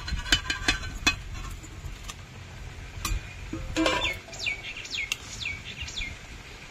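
Utensil clinking and knocking against a cooking pot as the fried fish pieces are put in, several sharp clinks in the first second and more about three to four seconds in. From about four seconds in, a bird calls a run of about five quick falling notes.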